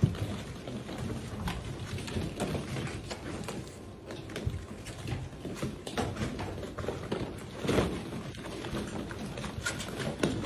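Golden retriever puppies playing: scuffling paws and irregular clattering knocks, busy throughout.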